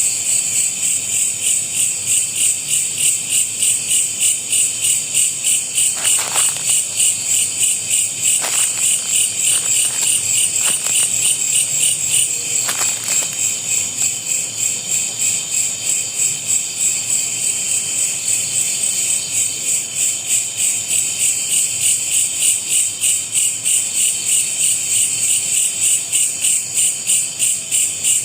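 Loud, shrill chorus of night insects, pulsing rhythmically a few times a second. A few faint clicks or taps sound about six to thirteen seconds in.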